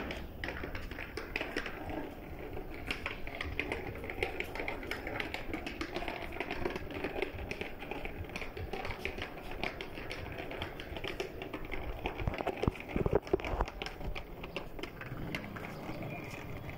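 Small plastic wheels of a child's trolley school bag clattering over interlocking paver bricks as it is pulled along: a fast, continuous rattle of clicks, a few louder knocks about twelve seconds in.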